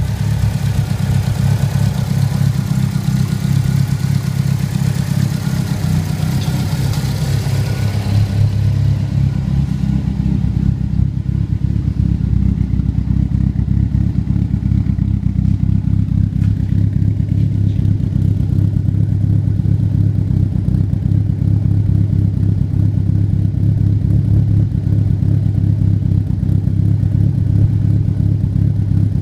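Holset HX35-turbocharged Mitsubishi 4G63 inline-four idling steadily with a choppy lope from Crower 272 camshafts. For the first eight seconds or so there is more high-pitched engine-bay noise; after that the deeper exhaust note dominates.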